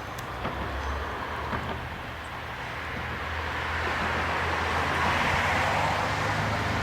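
The first-generation Iyonada Monogatari diesel railcars running past, a steady rumble with a low engine hum that grows louder about halfway through.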